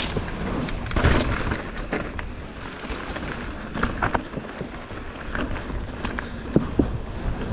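Mountain bike riding down a bike-park trail: a steady low rumble of wind and tyre noise, with frequent sharp clicks and knocks as the bike rattles over rough ground.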